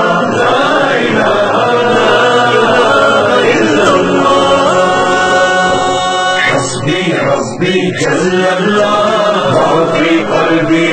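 Devotional nasheed: voices chanting and singing together as background music.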